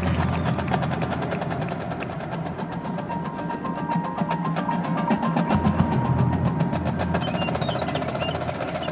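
High school marching band playing its field show in a percussion-heavy passage: rapid drum strokes throughout over held mallet notes, with sustained low notes at the start and again past the middle.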